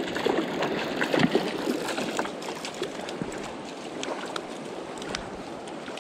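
A hooked rainbow trout splashing and thrashing in a shallow creek, then flopping on the sandy bank among dry twigs, with many short sharp ticks. The creek's steady running water underneath.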